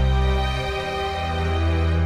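Background music: held, sustained notes over a deep bass.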